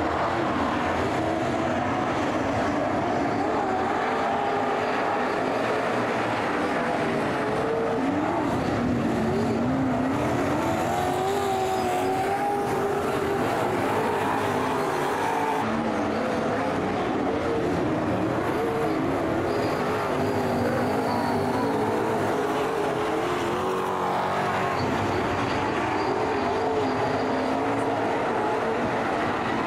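A pack of super saloon race cars' V8 engines running hard on a dirt speedway oval, several engines at once, their pitch rising and falling as the cars accelerate off the turns and lift into them.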